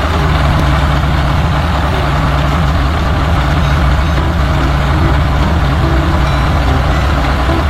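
Heavy truck engine running steadily at idle.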